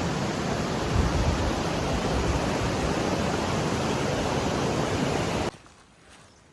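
Steady rushing of flowing water, cutting off suddenly about five and a half seconds in.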